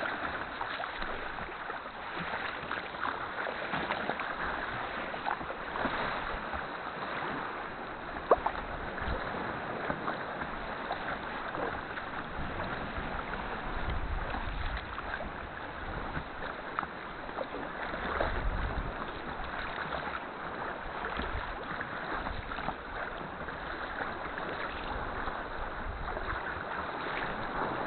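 Sea kayak being paddled through choppy water: paddle strokes and water splashing and sloshing against the hull, with a single sharp knock about eight seconds in.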